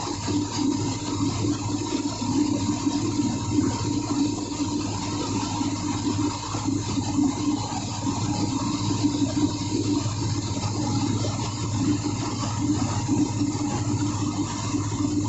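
Steady drone of running engine-room machinery: a constant low hum with a mid-pitched tone over it, unchanging throughout.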